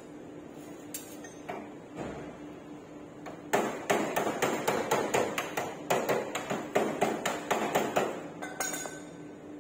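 A quick run of hammer blows, about four to five a second, lasting roughly five seconds, with a couple of single knocks before it.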